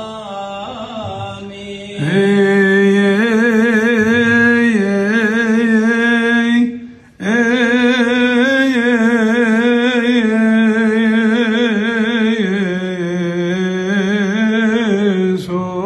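A man's solo voice chanting Coptic Orthodox liturgical responses into a microphone, a melismatic melody with a wavering vibrato. It is quieter for the first two seconds, then loud, with a short break for breath about seven seconds in.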